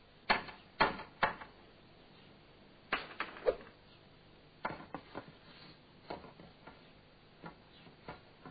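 A run of sharp wooden knocks and clatters. Three loud ones come close together at the start, a second cluster follows about three seconds in, and then come quieter, scattered taps.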